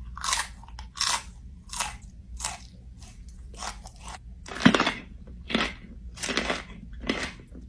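A person chewing crunchy food close to the microphone, with a crisp crunch roughly every 0.7 seconds and one louder bite about two-thirds of the way through.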